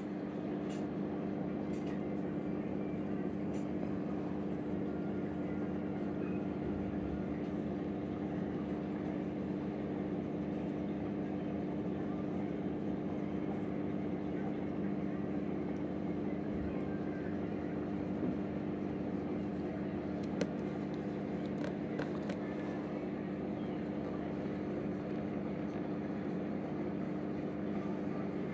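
Aquarium pump running with a steady low hum, with a few faint clicks about two-thirds of the way through.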